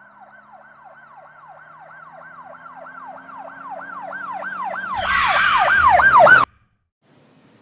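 Emergency-vehicle siren in a fast yelp, its pitch sweeping down and back up about three times a second. It grows steadily louder as if approaching, a rush of noise joins it near the end, and it cuts off suddenly.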